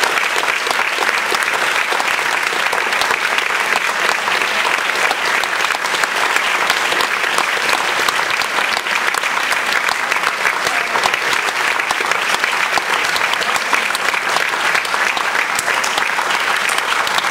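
Audience applauding steadily: dense, continuous clapping from a full house.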